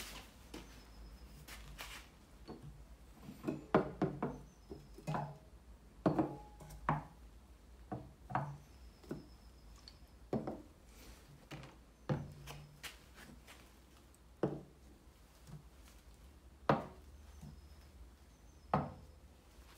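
Metal cans and plastic bottles being picked up and set down on a wooden tabletop: a series of irregular knocks and clunks, some with a short ring.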